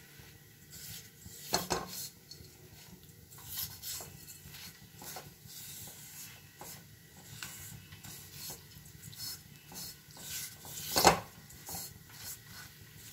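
A red spatula stirring and scraping vermicelli as it fries in ghee in a metal kadai: repeated irregular scraping and rustling strokes against the pan. There is a sharper knock about eleven seconds in.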